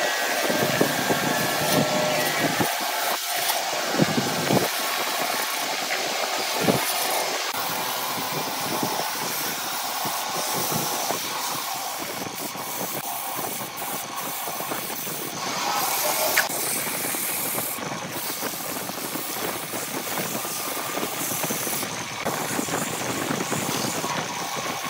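Wood lathe running with sandpaper pressed against the spinning wooden cup: a steady abrasive hiss over the hum of the machine, a little scratchier in the first several seconds.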